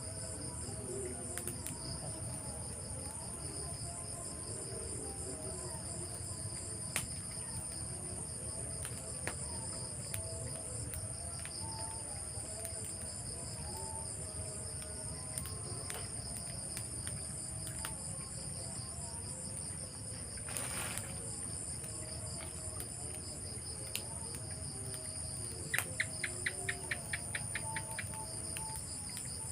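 Crickets and other insects chirring steadily in high, pulsing trills. There is a brief rustle-like noise about two-thirds of the way through, and near the end a fast run of about a dozen fading clicks.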